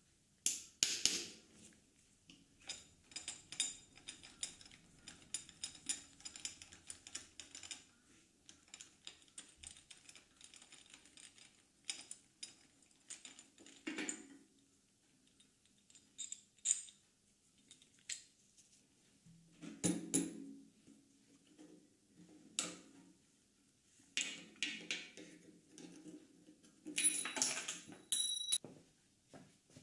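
T-handle hex key unscrewing the front fuel-tank mounting bolt on a 2001 Yamaha R1: a run of quick small metallic ticks and clicks with a few sharper knocks. Near the end there is a brief ringing metal clink as the bolt comes free.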